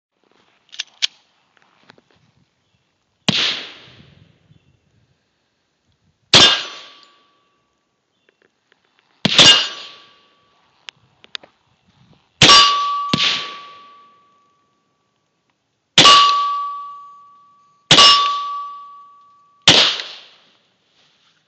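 .40-calibre handgun fired eight times, a few seconds apart. After most shots a steel target rings with a steady high ding that lasts a second or two.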